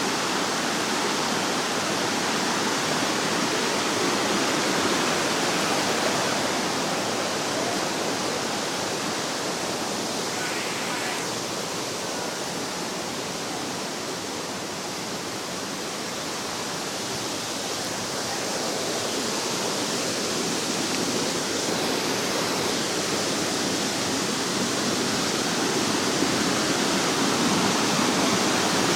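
Waterfall rushing steadily, a dense hiss of falling water with lots of water flowing.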